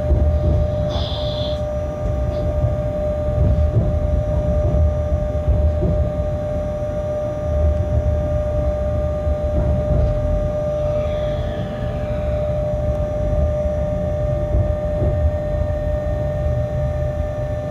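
Locomotive running on the track, heard from the cab: a low rumble with a steady whine, and brief high squeals about a second in and again around eleven seconds, the second falling in pitch.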